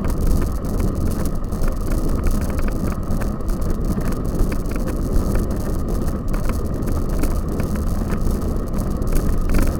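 Bicycle on the move: a steady low rumble and wind rush on the microphone, with many small rattles and clicks from the bike.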